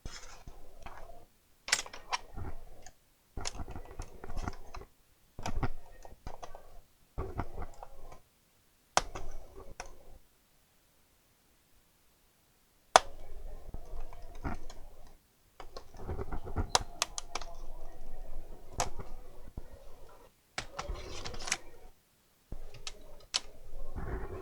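Irregular plastic clicks, taps and light knocks from a laptop being handled and taken apart by hand, in short bursts with brief quiet gaps.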